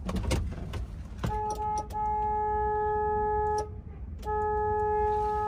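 Semi-truck horn sounded from inside the cab: a short beep about a second in, then two long steady blasts. It is a warning to a driver who has pulled in too close to the truck.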